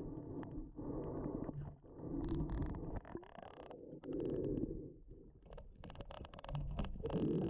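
Muffled underwater rushing picked up by a camera held below the surface, swelling in repeated bursts about a second long with short gaps between. Scattered sharp clicks run through it.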